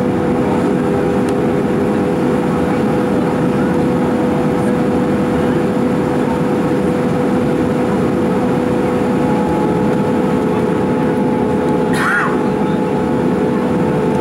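Steady cabin noise of an Airbus A310 in flight on approach, heard from a window seat over the wing: an even rush of jet engines and airflow with a few steady humming tones. A short high-pitched sound rises and falls once near the end.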